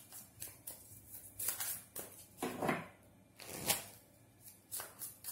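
A deck of tarot cards being shuffled by hand: a string of short, irregular riffling and slapping sounds.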